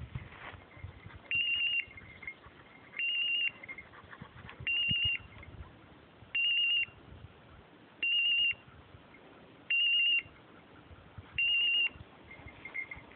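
Electronic beeper collar on an English setter sounding its point-mode signal: a warbling high beep about half a second long, repeated seven times roughly every 1.7 s, each followed by a fainter lower tone. The signal means the dog has stopped and is holding a point.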